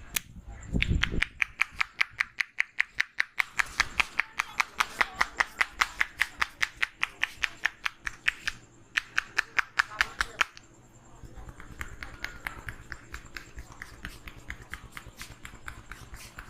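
Percussive head massage by hand: a fast, even run of sharp slaps at about five a second for roughly nine seconds. The slaps stop abruptly and give way to softer, quieter tapping.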